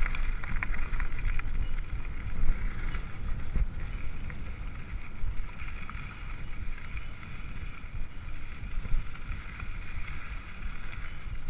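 Wind rushing over the microphone during a fast mountain-bike descent, with a steady low rumble and the bike's tyres rolling and rattling over the dirt trail.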